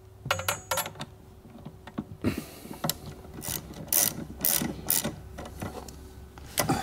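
Socket ratchet clicking as a car battery terminal nut is tightened down on a battery-maintainer lead. A few quick clicks come first, then regular strokes about two a second from about two seconds in.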